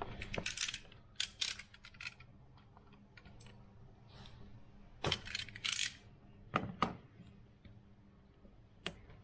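Short clusters of sharp clicks and snips from a hand wire-stripping tool working the insulation off a heavy red power cable, with rustle from handling the wire.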